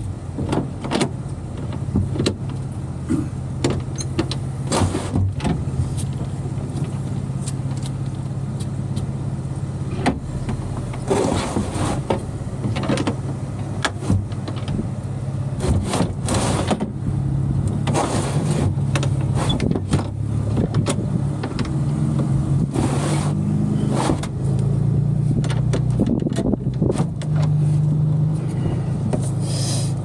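Electric motor of a powered mobility-scooter lift humming steadily as it folds the platform up, rising in pitch over the last few seconds, with occasional clicks and clunks from the moving platform.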